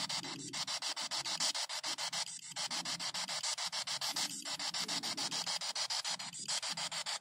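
P-SB7 spirit box (AM/FM frequency-sweep radio) scanning: radio static chopped into rapid, even pulses about ten times a second, with a short break about every two seconds.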